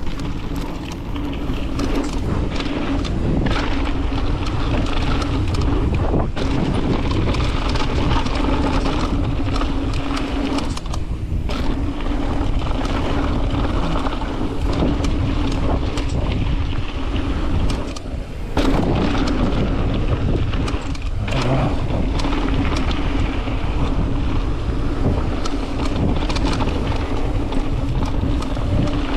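Mountain bike ridden fast down a dirt bike-park trail: a steady roar of tyres and wind on the microphone, with rattles and clicks from the bike. The noise briefly drops away twice, about 11 and 18 seconds in.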